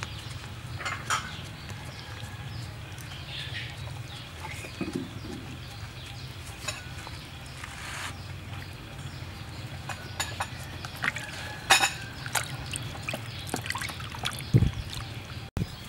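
Raw pig intestines being rinsed by hand in a plastic basin of water: water sloshing, splashing and dripping in short scattered bursts over a low steady hum, with a low thump near the end.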